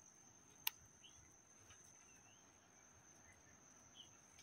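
Near silence with faint outdoor ambience: a steady high-pitched whine, a few faint short chirps, and a single sharp click under a second in.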